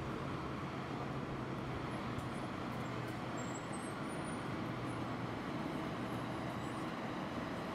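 City street traffic noise: a steady wash of passing vehicles with a low engine hum, and a few faint high chirps in the middle.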